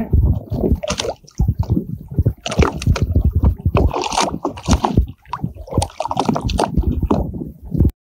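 Seawater sloshing and splashing, irregular and choppy, around a hand holding a small school shark in the water as it is released. The sound cuts off suddenly near the end.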